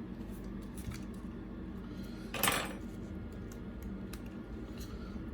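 A pry tool clicking and scraping against the iPad 6's housing as its logic board is pried up, with faint scattered ticks and one short, louder scrape about two and a half seconds in, over a steady low hum.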